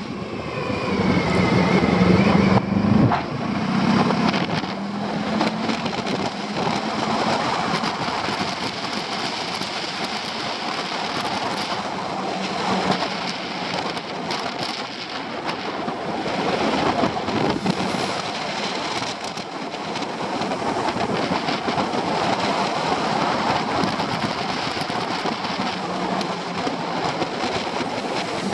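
Wind rushing over the microphone of a motorcycle moving downhill, with the Honda Pan-European ST1100's V4 engine running underneath. The engine is louder for a few seconds about a second in, then sinks mostly beneath the wind noise.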